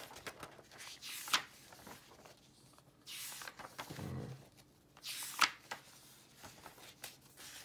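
Paper pages of a comic book being turned by hand: three rustling swishes about two seconds apart, two of them ending in a sharp flick.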